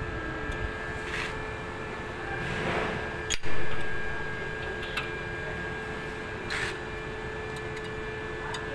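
Handling noise from working on forklift clutch linkage parts: rustles and light taps, with one sharp knock about three and a half seconds in, over a steady faint background hum.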